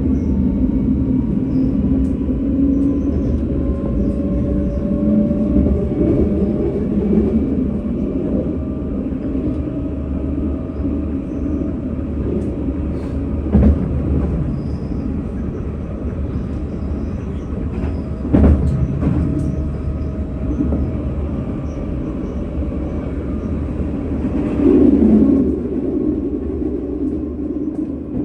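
Tram running on its rails: a steady low rumble under a faint whine that slowly glides in pitch, with two sharp knocks about five seconds apart around the middle and a brief louder swell near the end.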